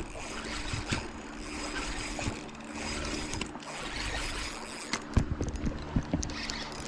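Fishing rod and reel worked while fighting a hooked bass: a cluster of short clicks and knocks about five seconds in, over a steady low hum and water.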